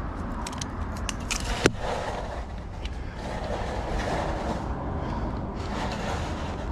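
Handling clicks while measuring and marking out a steel door: several light clicks and one sharp click just under two seconds in, over a steady low background rumble.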